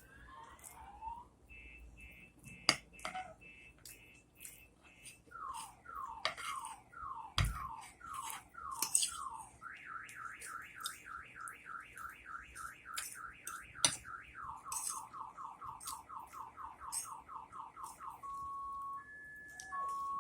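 Car alarm siren cycling through its tone patterns. It starts with a few rising chirps, then runs through about two to three falling sweeps a second, a rapid series of rising pulses, and quicker falling whoops. Near the end it changes to a two-tone beep that alternates between a low and a high note.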